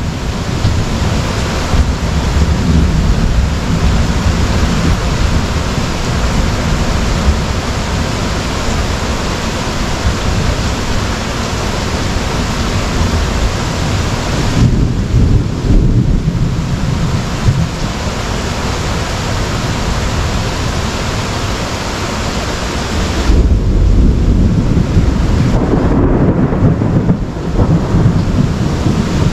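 Heavy rain pouring down in a thunderstorm, with thunder rumbling low underneath. The rumble swells about halfway through and again around four-fifths of the way in, where the storm is loudest.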